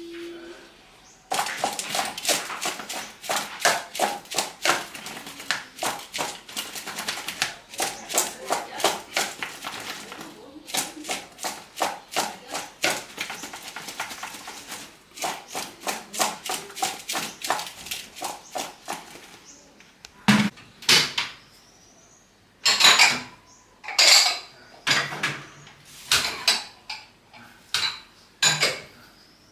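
A knife chopping on a cutting board in a steady rhythm, about four strokes a second. It stops for a moment, followed by a few louder, irregular clatters of dishes and utensils.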